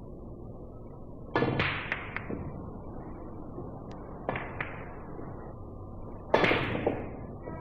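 Billiard balls clicking against each other on a pool table, in three bursts of sharp clacks: a rapid cluster about a second and a half in, a couple of single clicks around four seconds in, and the loudest cluster near the end.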